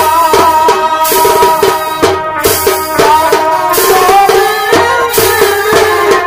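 Purulia Chhau dance music: a reed pipe plays a wavering, bending melody over drums beating a fast rhythm, with a rattling jingle.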